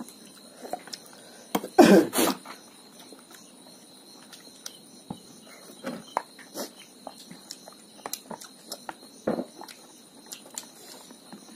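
Eating sounds of noodles and rice: two loud slurp-like bursts about two seconds in and another a little after nine seconds, with small clicks of chewing and utensils in between.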